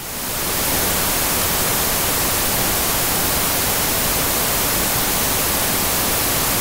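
Steady hiss of analog TV static, a white-noise sound effect that swells up over the first half second and then holds level.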